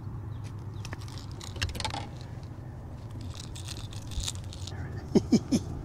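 Water splashing and a light metallic jangle as a big bass, hooked on a topwater popper, is lifted by hand from the water at the side of a boat, over a steady low hum. A few short grunts come near the end.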